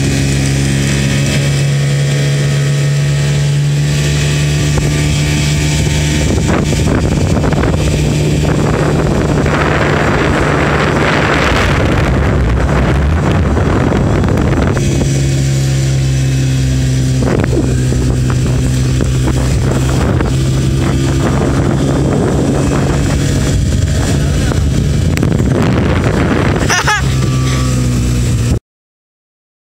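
Outboard motor on a small open boat running steadily at speed, heard from on board with a steady low drone. A rushing noise lies over it for several seconds in the middle, and the sound cuts off suddenly near the end.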